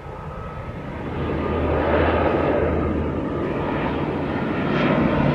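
Twin-turboprop ATR airliner climbing out overhead, its engines and propellers growing louder as it passes, with a steady low propeller drone.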